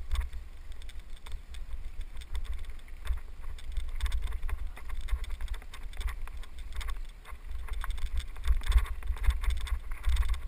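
Wind buffeting the microphone of a helmet camera on a moving mountain bike, with tyres rolling over a dirt trail and many scattered clicks and rattles from the bike. The rumble and crunch grow louder about eight seconds in.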